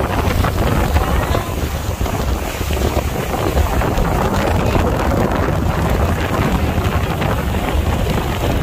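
Wind buffeting the microphone over the steady run of a speedboat's engine and rushing water as the boat speeds along.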